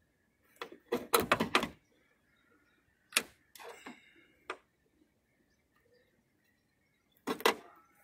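Sharp clicks and knocks from a car trunk's metal latch striker being handled. There is a quick cluster about a second in, single knocks around three and four and a half seconds with a short scrape between them, and a last pair near the end.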